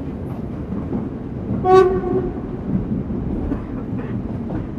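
Express passenger train rumbling along the tracks, heard from inside a carriage, with a single short train horn blast about two seconds in.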